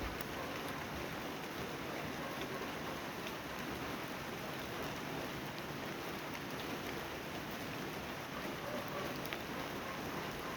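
Steady rain falling, with scattered small drop ticks.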